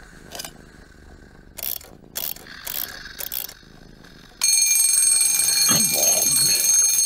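Twin-bell wind-up alarm clock: a few short clicks and rattles, then about four and a half seconds in its bell starts ringing, loud and continuous.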